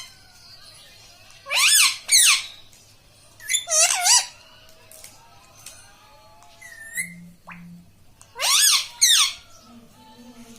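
Pet rose-ringed (ringneck) parakeet giving loud, harsh squawks in quick pairs, three pairs in all with short gaps between.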